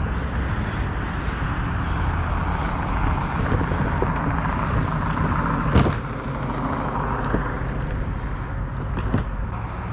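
A motor vehicle running steadily, a continuous engine and road rumble, with a single sharp knock about six seconds in.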